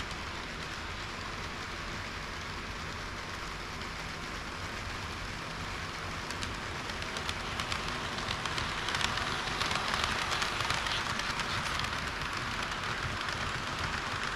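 Model train running on its track: a steady rolling rattle that grows louder about halfway through, with a run of light clicks in the middle.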